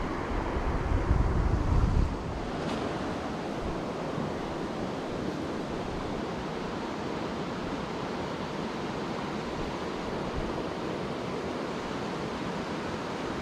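Rushing river water: a steady, even rush, with wind buffeting the microphone as a low rumble for the first two seconds.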